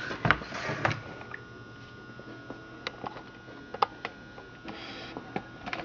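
Handling knocks and clicks from a Stihl MS 460 Magnum chainsaw being turned over. The loudest knock comes just after the start, followed by a brief scraping rustle, scattered light ticks and another short rustle near the end.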